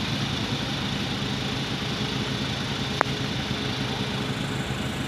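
Steady low engine hum on a ferry's car deck, with one sharp knock about three seconds in.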